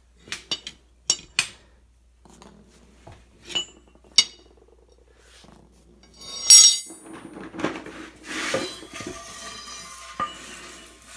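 Steel tire irons and railroad spikes clinking and knocking against a concrete floor and a steel gun safe as the safe is pried up to set golf balls under it: a string of sharp single clinks, then a louder clatter about six and a half seconds in, followed by scraping and knocking.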